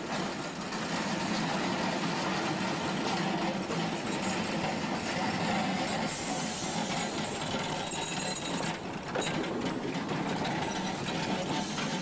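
Vintage heritage streetcar rolling past close by on street-running track, its wheels rumbling steadily on the rails. A hiss comes in about halfway through, and a few sharp clacks follow a few seconds later.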